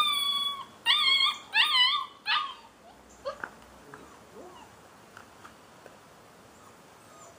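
Afghan Hound puppy whining: four high whines over the first two and a half seconds, the first long and steady, the later ones shorter and wavering in pitch.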